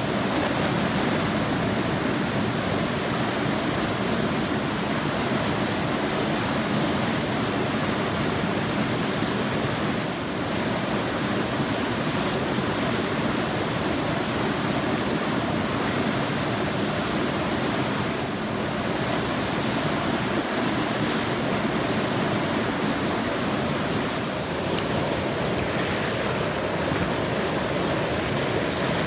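Whitewater river rapids rushing steadily: the constant churn of a standing wave and the surrounding white water.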